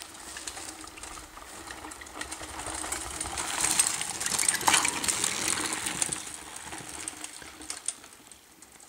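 Mountain bikes riding past on a dirt forest trail: tyres on the ground and drivetrains rattling and ticking. The sound builds to a peak about four to five seconds in, with one sharp clack, then fades away.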